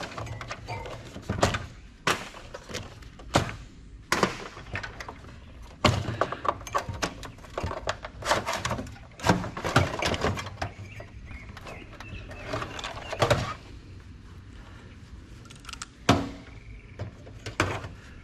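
Irregular knocks, clanks and rattles of metal parts as an old desktop computer is pulled apart by hand, with a quieter stretch near the end.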